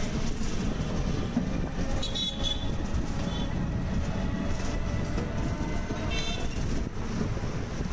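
Street traffic heard from a moving battery rickshaw: a steady rumble of road and wind noise, with a few short vehicle horn toots, the clearest about two seconds in and about six seconds in.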